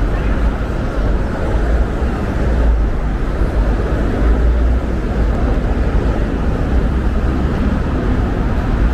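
Busy city street ambience: a steady low rumble of road traffic under a general wash of street noise.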